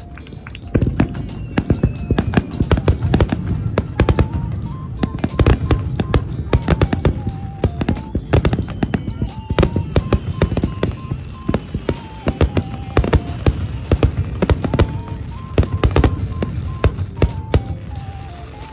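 Fireworks display: a rapid, dense run of bangs and crackles, several a second, over music with a simple melody.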